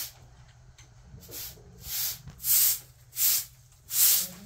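Short straw hand broom sweeping a cement floor: about five brisk swishing strokes, starting about a second in.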